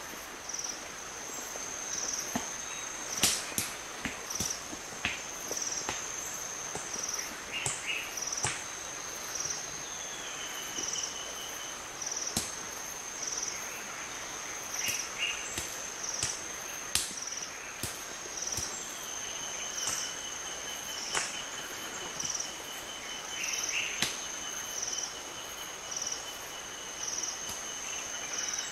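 Irregular sharp knocks of stones struck on oil palm nuts as chimpanzees crack them. Behind them, a steady high insect drone with a pulsing call about once a second.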